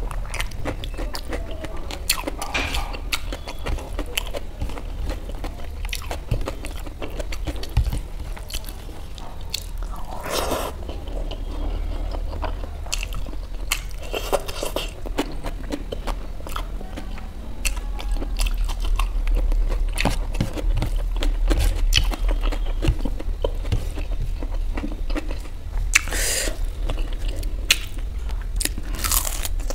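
Close-miked chewing and crunching as a person eats fried rice, raw onion slices and crisp pakoras, with many small wet mouth clicks and a few louder crunches spread through, over a steady low hum.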